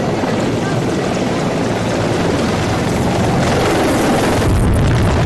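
Loud, steady rumble of a moving vehicle with road and wind noise, turning deeper near the end.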